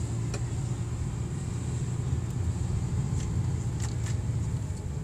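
Steady low rumble of a moving car's engine and tyres heard from inside the cabin, with a few faint clicks.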